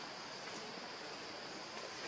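Steady outdoor background hiss with a constant high, thin whine running through it, and no distinct calls or knocks.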